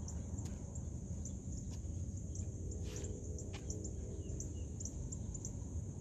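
Outdoor background of a steady, high insect chirring with short high chirps repeating over it, a low rumble underneath, and a few faint knocks.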